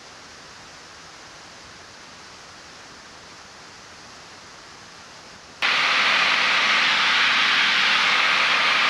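Faint steady hiss. About two-thirds of the way in it cuts suddenly to the loud, steady engine and airflow noise of a single-engine light aircraft in cruise.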